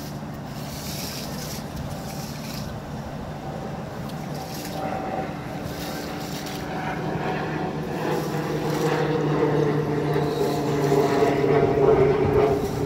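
An engine or motor running steadily with a pitched drone that grows louder over the second half, while a squeegee pushes sheets of water off a soaked rug onto concrete.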